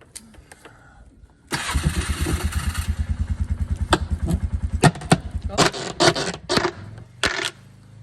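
An engine cranked by its starter, a rapid even chugging that starts suddenly about a second and a half in, then catching with a run of uneven sharp bangs before settling into a low steady running hum near the end.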